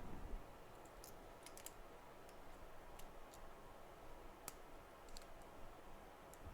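A soft low knock at the start, then faint, scattered small clicks, about eight of them spread irregularly, from small tools and phone parts being handled on a repair bench, over quiet room noise.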